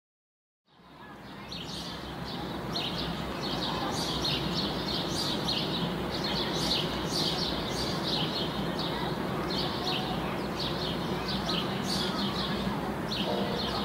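Small birds chirping busily and repeatedly over a steady background rumble, fading in over the first couple of seconds. Near the end a few sustained musical notes come in.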